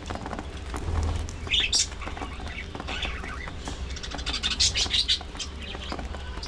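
Budgerigars chirping: short high chirps, a brief cluster about a second and a half in and a denser flurry around four and a half to five seconds in, over a steady low hum.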